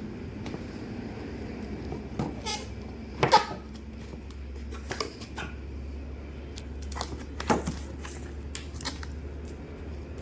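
Handling of a mini JCB loader model: scattered light clicks and knocks, the loudest about three seconds in, over a low steady hum.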